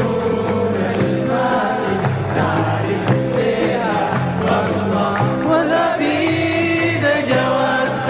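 Live band playing a Sudanese song, with many voices singing together over the music.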